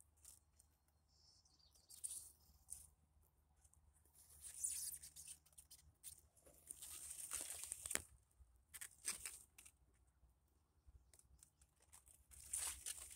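Faint rustling and brushing of large leaves handled by a gloved hand, in several short bursts, the longest about seven seconds in, over a faint low hum.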